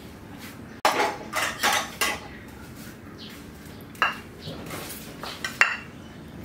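Kitchen utensils and dishes clattering and clinking: a burst of clatter about a second in, then single sharp clinks about four seconds in and again near the end, one with a short metallic ring.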